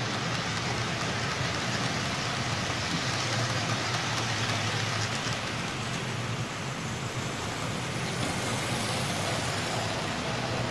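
Model railway trains running on the layout's track: a steady rolling rumble with hiss, joined by a faint steady whine about eight seconds in.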